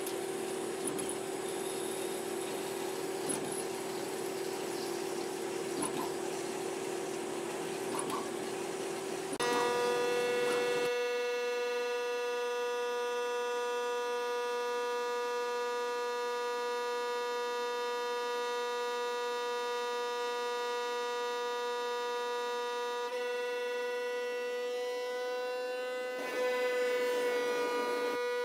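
CNC lathe drilling a metal part under flood coolant: a steady machining hum with the wash of coolant. About ten seconds in this gives way to a steady ringing whine as a 10 mm carbide endmill mills the part, and the whine grows louder and rougher about two seconds before the end.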